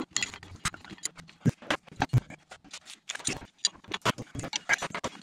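Metal wrench clicking and clinking on a 17 mm driveshaft nut as it is worked loose a little at a time: a run of irregular sharp ticks, several a second.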